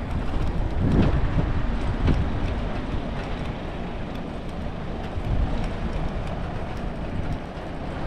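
A bicycle rolling over cobblestone paving, giving a steady rattling rumble, with two harder jolts about one and two seconds in.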